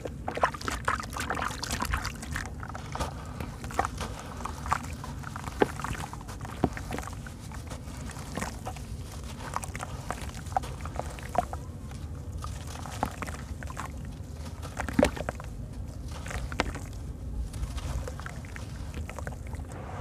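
White sand-cement block being crumbled by hand over a basin of water: many scattered sharp crackles and crunches as pieces break off, with crumbs dropping into the water and hands sloshing and squishing in it.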